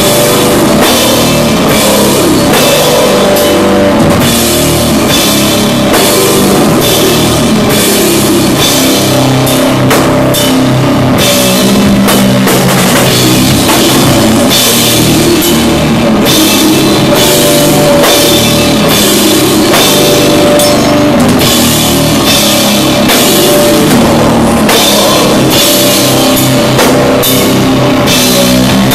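Doom metal band playing live: heavily distorted riffing over a drum kit with crashing cymbals, loud and unbroken.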